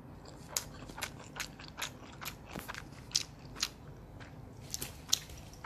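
Mouth sounds of someone chewing a mouthful of instant ramen noodles: quiet, moist clicks about twice a second.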